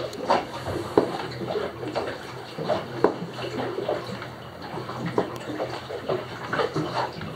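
Waves slapping and splashing irregularly against the hull of a small solar-electric boat under way on choppy water, heard from inside its cabin, with a faint steady hum beneath.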